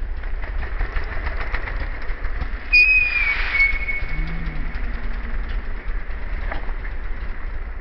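Steady low rumble of wind on the microphone, with a short high whistle about three seconds in that falls slightly in pitch, and a pigeon cooing softly a second later.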